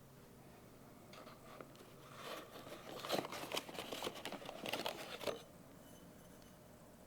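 Packaging being unwrapped and handled, crinkling and rustling with many small crackles, loudest in the middle and stopping abruptly a little after five seconds in.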